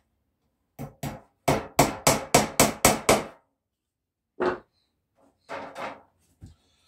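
A claw hammer tapping small nails into the cedar frame of a mesh beehive floor. Two light taps come first, then a quick run of about seven blows, then a few more spaced taps.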